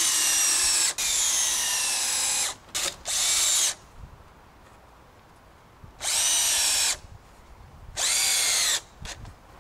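Cordless drill-driver running in short bursts into softwood timber, fastening a 2x2 piece to the platform frame. There are about five bursts of motor whine, a longer run at the start and two shorter ones after a pause of about two seconds; the pitch drops during the longer bursts as the motor comes under load.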